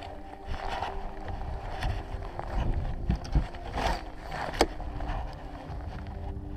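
Wind on the microphone and small waves lapping against a boat's hull, under a faint steady hum. Several sharp knocks from gear being handled in the boat, the loudest about four and a half seconds in.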